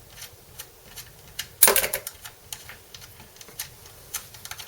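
Screwdriver winding screws out of an electric guitar body: a run of small, irregular metal clicks, with one louder clunk about one and a half seconds in.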